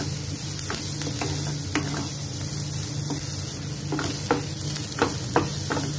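Sliced onions and green chillies sizzling as they fry in hot oil in a non-stick pan. A wooden spatula stirs them, scraping and tapping against the pan several times.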